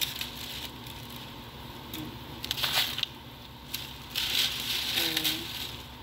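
Dry, thin cracker-like flatbread sheets crackling and crunching in several short bursts as they are broken and pushed into a pot of tomato stew.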